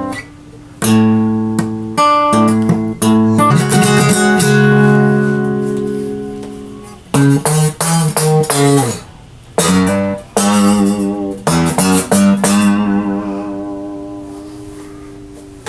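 A guitar strung with only five strings, played as chords and single notes that are struck and left to ring. There are a few quick strummed runs and some held notes with a slight waver, and between phrases the sound dies away.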